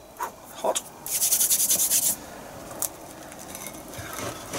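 Crisp, freshly grilled panini crust crackling and rasping as it is handled and pulled apart by hand. There are a couple of light knocks in the first second, then a dense crackling rasp lasting about a second, with more crackle building near the end.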